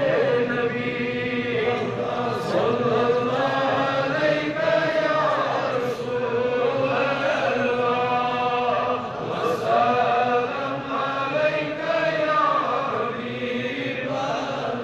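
Islamic devotional chanting: a recitation sung in long, drawn-out phrases without a break.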